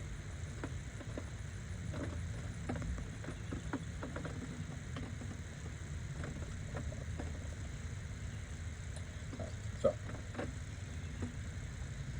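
Scattered light clicks and knocks of hand tools and metal parts during engine disassembly, with one sharper knock near the end, over a steady low rumble.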